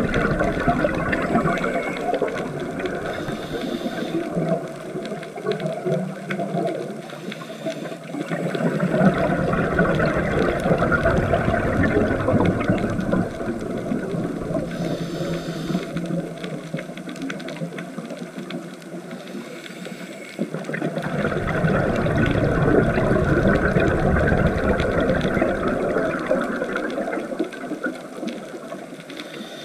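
Scuba regulator bubbles heard underwater: a rushing, bubbling noise that swells and falls back in long waves every several seconds with the diver's breathing.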